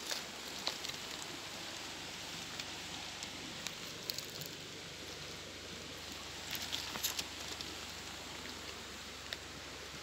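Rounded river pebbles clacking and crunching underfoot as someone steps across a stony creek bed: a few sharp stone-on-stone clicks, bunched together about seven seconds in, over a steady hiss.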